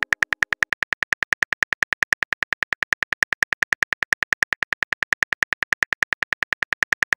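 Typing sound effect of a phone's on-screen keyboard: rapid, even clicks, about nine or ten a second, as a message is typed out.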